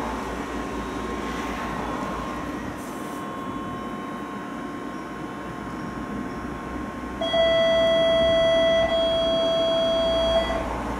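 Low steady hum inside a stopped tram. About seven seconds in, a loud steady electronic warning tone sounds for about three seconds: the tram's door-closing signal before it pulls away.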